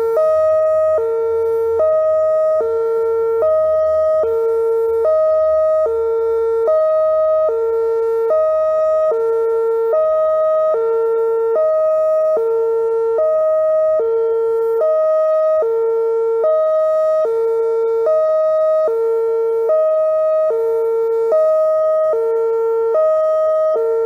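Whelen OmniAlert OA4 electronic warning siren sounding a hi-lo alarm: two steady tones alternating evenly, each held a little under a second.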